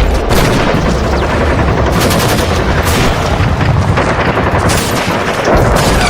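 Battle sound effect: dense gunfire, including machine-gun fire, with booms over a continuous low rumble.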